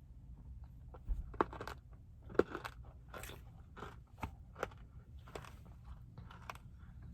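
A person biting and chewing a spoonful of ice cream with crunchy frosted animal cracker pieces in it: a run of irregular crisp crunches, the loudest a second or two in, then softer chews.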